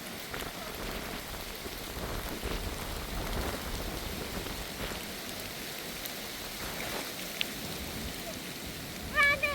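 Steady rain falling, an even dense hiss. Near the end a brief, loud pitched cry cuts in over it.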